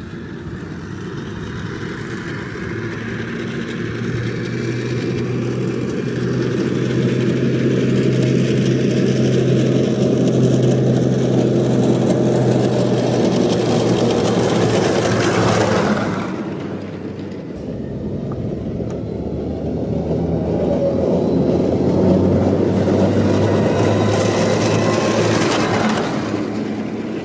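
Tracked M270 MLRS rocket launcher driving past on a gravel road: its diesel engine hum and running gear grow louder as it approaches. The sound drops off sharply about two-thirds of the way through, then builds again as the launcher draws near once more, fading near the end.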